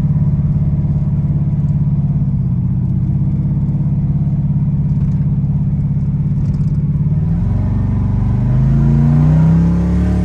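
Twin-turbocharged Dart 383 cubic-inch stroker V8 of a 1955 Chevrolet 3100 pickup, heard from inside the cab while driving. It holds a steady cruising drone, then about seven seconds in it accelerates with the pitch rising for about two seconds, before dropping away at the very end.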